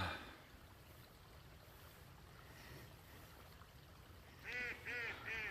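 Faint steady riverside background, then about four and a half seconds in geese start honking, a quick run of short honks about three a second.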